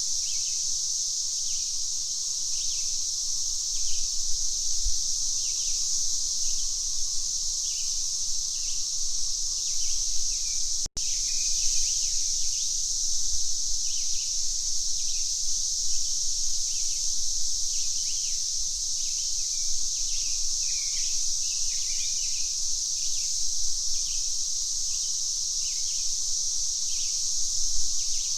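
Cicadas droning steadily at a high pitch, with short bird chirps repeating over them. The sound cuts out for an instant about eleven seconds in.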